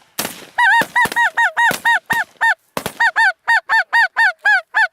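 Snow geese honking: a fast, even string of short, high calls, about four or five a second, with a brief break near the middle.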